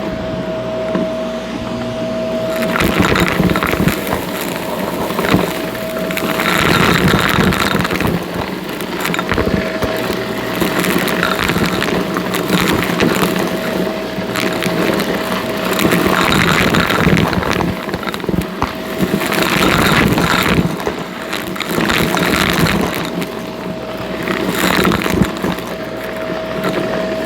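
Shark NV351 upright vacuum running with a steady motor whine, surging every two to three seconds as it is pushed back and forth. On each stroke it crackles as it sucks up crunchy debris.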